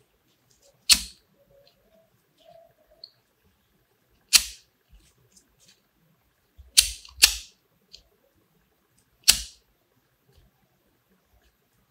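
Flint lighter struck five times, each a sharp flick of the spark wheel with a short tail; two of the strikes come in quick succession a little past the middle. The flame is lit to heat-seal the grosgrain ribbon.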